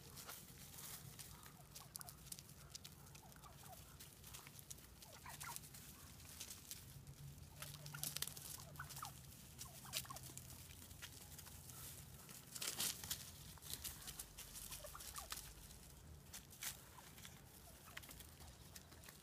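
Flock of wild turkeys feeding on birdseed in dry leaf litter: many quick pecking clicks and rustles, busiest about two-thirds of the way in, with a few faint short turkey calls near the middle.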